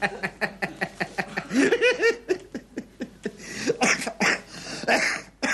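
Studio audience laughing at a joke: a long stretch of dense, pulsing laughter that dies away at the end.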